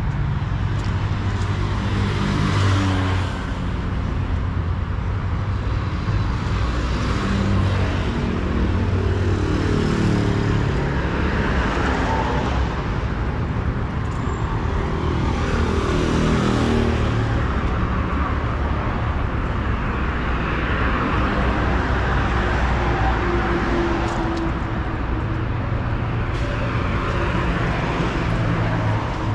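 City street traffic: cars and other motor vehicles driving past over steady road noise, their engines rising in pitch in steps as they accelerate through the gears and then falling away.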